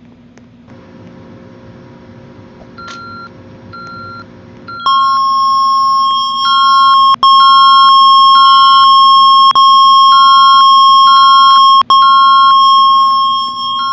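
Electronic alert tones from an emergency communications control panel. A pulsing beep starts about three seconds in and is joined about five seconds in by a loud steady tone with higher pulsed tones over it. The steady tone breaks off briefly a few times. This is the alert signal that precedes a spoken emergency announcement.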